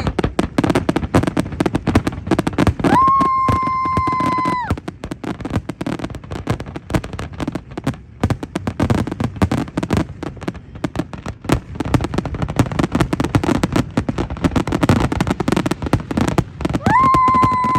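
Fireworks display: a rapid, continuous barrage of bangs and crackles. A steady horn blows twice, for about two seconds each time, once a few seconds in and again near the end.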